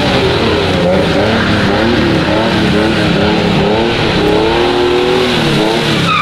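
Nissan 350Z drift car sliding in tight circles, its engine revving up and down over the screech of its rear tyres breaking traction.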